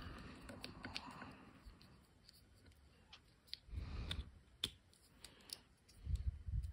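Faint plastic clicks and rubbing as a small plastic helmet is worked onto an action figure's head, with a few dull knocks of handling about four seconds in and near the end.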